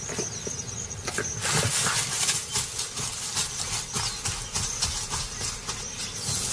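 Lioness feeding on a small kill: a dense, irregular run of crunching and crackling clicks, with rustling in the grass.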